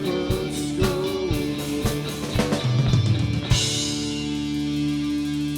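Live rock band finishing a song: the last sung word over guitar and a steady drum beat, then a final crash about three and a half seconds in, with the guitar chord left ringing and slowly fading.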